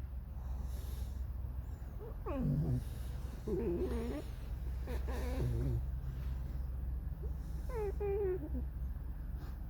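Pet fox making creaky, whining calls, about four in a row, several sliding down in pitch, some with a wavering quaver.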